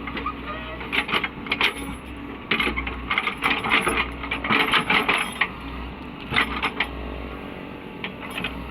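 Caterpillar 307E2 mini excavator's diesel engine running steadily, with bursts of sharp metallic clanking and rattling from the machine at work: a short burst about a second in, a longer run from about two and a half to five and a half seconds in, and another burst shortly after six seconds.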